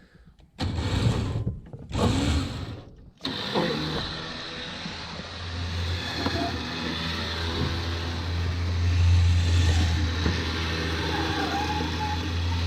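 Mini excavator's engine being cranked in two short spells, then catching about three seconds in and running on steadily at idle.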